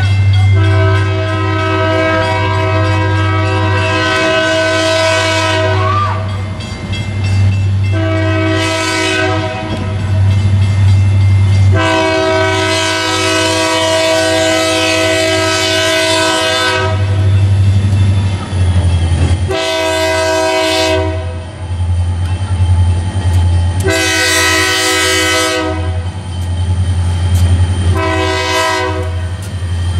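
Air horn of the lead Maryland Midland EMD SD45 locomotive sounding for a street grade crossing: six blasts of a steady multi-note chord, long ones alternating with short ones, over a low steady rumble.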